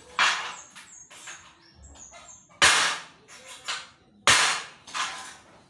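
Sharp knocks on aluminium window framing during assembly: three loud strikes about a second and a half to two seconds apart, each ringing briefly, with smaller taps between.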